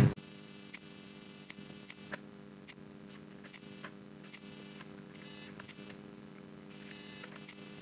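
Computer mouse clicking, about eight short sharp clicks at irregular intervals, over a faint steady electrical hum.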